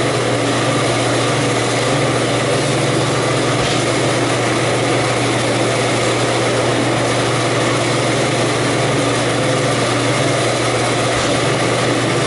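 Walk-in cooler evaporator fan running steadily at close range: a constant low hum under a hiss of moving air, with the refrigeration system in operation.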